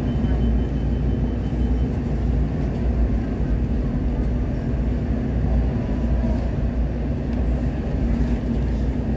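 Interior of a WMATA 2000-series Metro railcar running on the track: a steady low rumble with a constant hum.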